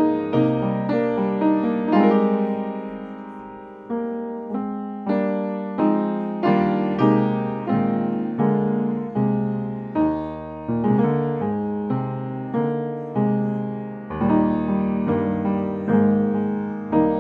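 Slow solo piano music: notes and chords struck roughly once a second and left to ring and fade, with one chord left to die away for nearly two seconds about two seconds in.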